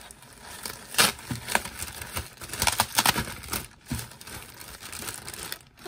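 Thin biodegradable plastic produce bag crinkling and rustling in uneven bursts as it is gripped and turned in the hands, busiest about three seconds in.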